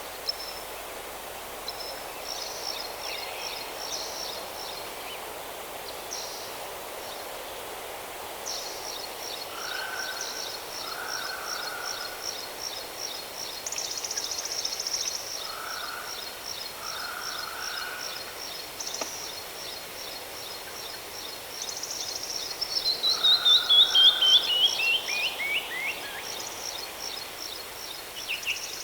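Birds singing over the steady rush of a waterfall: a long, high, rapid trill through the middle, short lower calls, and about three-quarters of the way through a loud descending run of notes.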